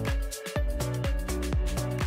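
Background electronic dance music with a steady beat and a bass line.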